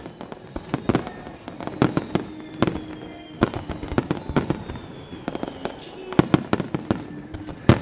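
Starmine fireworks barrage: aerial shells bursting in rapid, irregular succession, several sharp bangs a second with echoes trailing after them.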